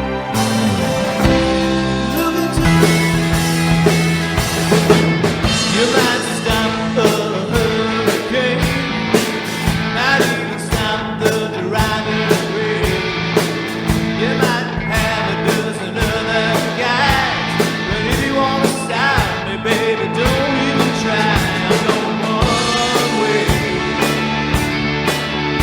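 A rock band playing live: a soft sustained opening gives way after about two and a half seconds to a full band with a steady drum beat, bass and guitars.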